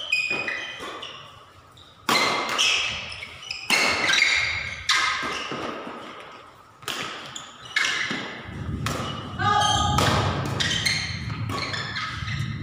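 Badminton rackets striking a shuttlecock back and forth in a doubles rally: sharp smacks with a brief ping, about every one to two seconds, echoing in the hall.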